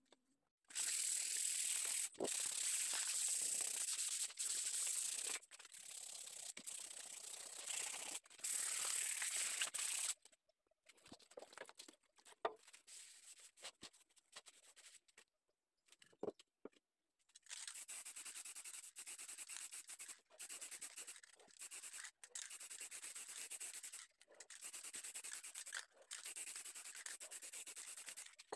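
Orbital sander running against a turned cumaru wood bowl: steady hiss with a thin high whine, in several stretches cut off abruptly. Partway through, a few light knocks, then quieter stretches of a similar hiss as the bowl's outside is worked again.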